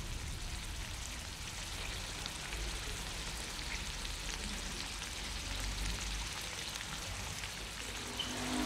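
Chopped meat sizzling and crackling steadily in a frying pan over a portable gas camping stove.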